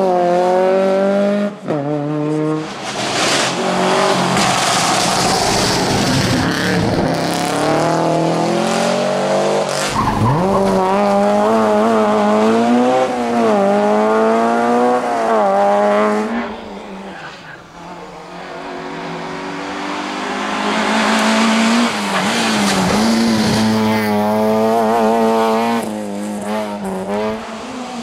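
Rally cars' small four-cylinder petrol engines, an Opel Corsa's and then a Peugeot 106's, revved hard through the corners. The pitch climbs through the gear changes and drops on the lift and downshift. The sound dips a little past halfway as one car goes and the next builds up.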